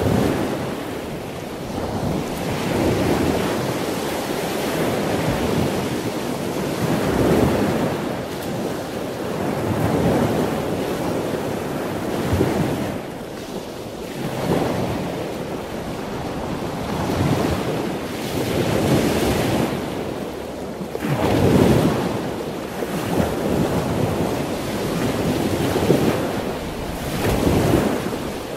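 Ocean surf: a rushing noise of waves that swells and ebbs every two to three seconds, with no engine or other pitched sound in it.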